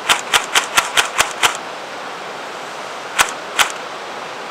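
Electric M41 airsoft rifle firing: a quick run of seven sharp shots, about four a second, then two more shots a few seconds later. Under the shots is the steady rush of a river.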